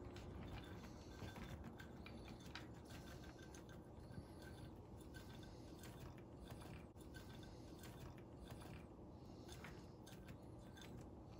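Faint, light pattering and scattered soft clicks of chopped pecans pouring from a glass measuring cup onto dry cake mix and butter slices in a baking dish.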